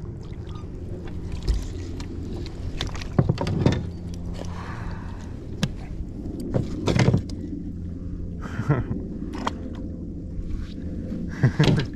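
Scattered knocks and bumps on a plastic fishing kayak while a hooked fish is brought alongside and a dog moves about on the deck, over a steady low hum.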